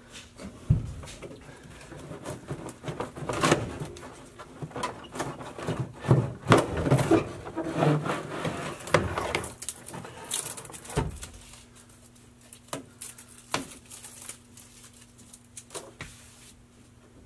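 Hand-work on the factory heat-only heater box of a 1970s Dodge Challenger as its retaining bolt is backed off and the box is worked loose from the firewall: irregular knocks, clicks and scrapes. They come thickest in the first half and thin out toward the end.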